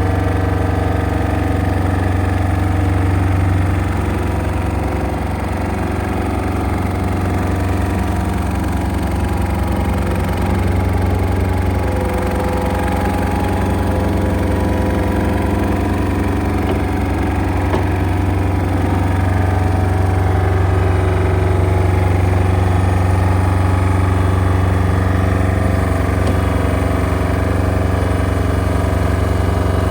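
Diesel engine of a LeeBoy L1000T asphalt paver running steadily.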